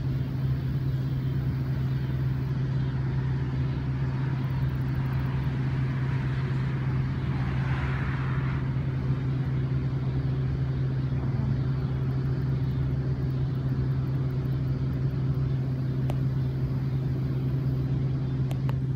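Steady low hum of a running motor or engine, unchanging, with a faint rushing sound that swells and fades around the middle.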